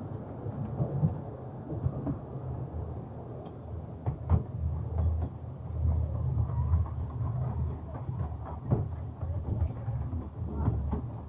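Narrow-gauge train moving slowly on the rails: a low, steady rumble with scattered clicks and knocks.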